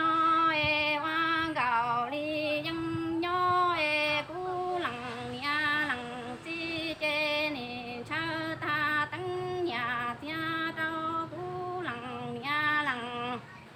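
A woman singing kwv txhiaj, Hmong sung poetry, solo and unaccompanied, in short phrases of held, wavering notes that step down in pitch at their ends.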